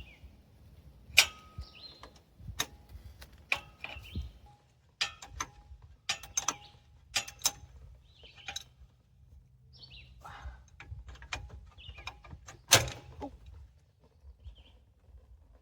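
Irregular metallic clinks and knocks of hand tools and steel hydraulic fittings as hydraulic lines are unbolted from an excavator's final drive travel motor. Some strikes ring briefly; the loudest come about a second in and about thirteen seconds in.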